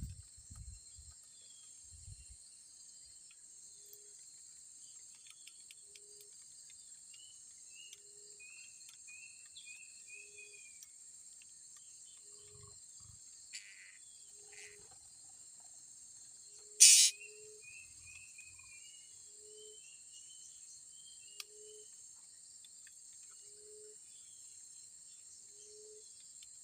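Steady high-pitched insect chorus with birds calling over it: runs of short falling chirps, a soft low note repeated about every one and a half seconds, and one loud sharp call about two-thirds of the way through.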